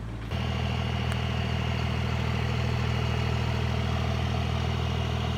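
Engine idling steadily with an even low hum, cutting in abruptly just after the start.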